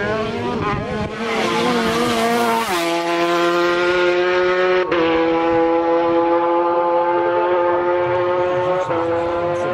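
Honda RC213V V4 racing motorcycle at full throttle. Its engine note climbs in pitch and then drops sharply as it passes, about three seconds in. After that a steady high-revving note carries on, broken briefly about five and nine seconds in.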